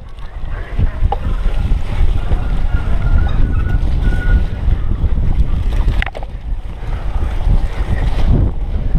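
Wind buffeting the microphone of a GoPro Hero 3 over the steady rumble of a cyclocross bike riding fast across bumpy grass, with a couple of sharp knocks from the bike.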